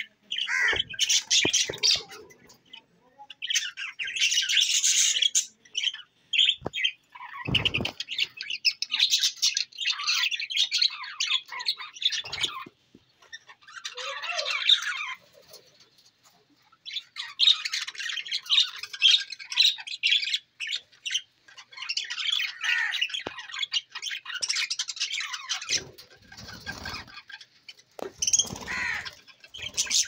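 A flock of budgerigars chattering and squawking in fast, scratchy warbles, in stretches of a few seconds with short pauses between. A few brief low thumps come in among the chatter.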